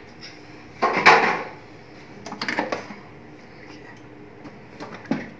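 Hard plastic parts of an HP LaserJet M1005 printer knocking and clattering as the opened printer is handled and its hinged scanner assembly is moved: a louder clatter about a second in, a few shorter knocks around two and a half seconds, and a single click near the end.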